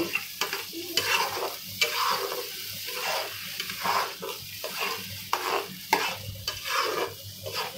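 Wet spice paste sizzling in hot oil in a kadhai. A wooden spatula stirs and scrapes it in repeated strokes, about one or two a second. This is the masala being roasted (bhuna) until its raw smell is gone.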